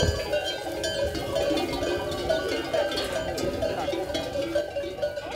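A flock of sheep with many bells ringing continuously and several sheep bleating at once, calls overlapping at different pitches.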